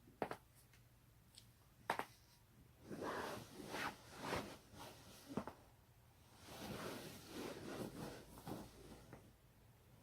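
Joints cracking: about four sharp pops, one right at the start, one about two seconds in, and two more around four and a half and five and a half seconds. Between them comes rustling of clothing and body movement as the body twists into position.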